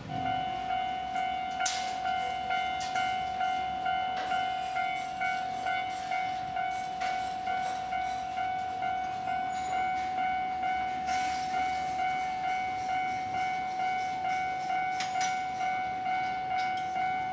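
Japanese railway level-crossing warning bell starting up and ringing an even, pitched ding a little under twice a second, signalling an approaching train with the crossing closing.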